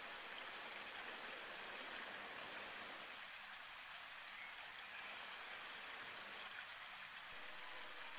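A faint, steady hiss with no distinct events in it.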